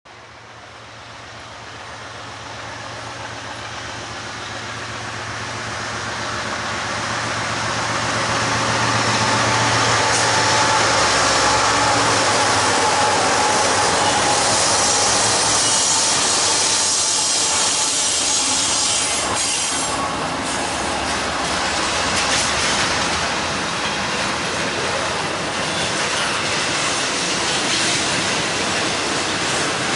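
BNSF freight diesel locomotives approach and pass on an intermodal train, their engine drone growing louder over the first ten seconds or so. They are followed by the steady rolling rumble and high hiss of the double-stack container cars' steel wheels on the rails.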